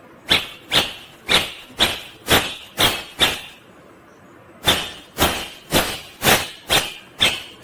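Indian ringneck parrot giving a run of short, sharp, harsh calls, about two a second, breaking off for about a second and a half midway before starting again.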